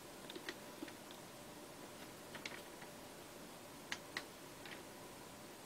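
A few faint, irregular light clicks and taps from thin wooden angel cut-outs being shifted and held in place on a paper-covered board, two a little louder about four seconds in.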